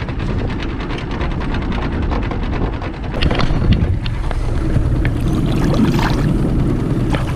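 Small outboard motor running steadily, with wind buffeting the microphone. From about three seconds in, water splashes at the side of the boat as a fish is let go by hand.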